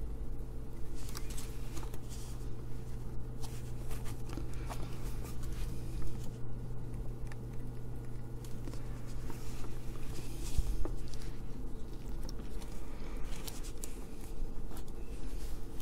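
Light clicks and short scrapes of small tools and components being handled while soldering parts onto a small circuit board, over a steady low hum.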